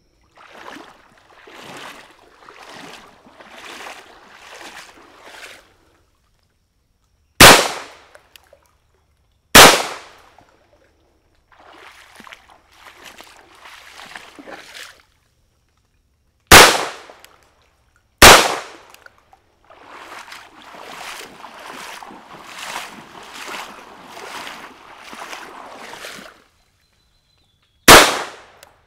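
Five single pistol shots from a Colt Government Model 1911A1 in .22 Long Rifle, built by Walther under licence. Each shot is a sharp crack with a short fading tail. They come as a pair about two seconds apart a quarter of the way in, another pair about a second and a half apart past the middle, and one more near the end.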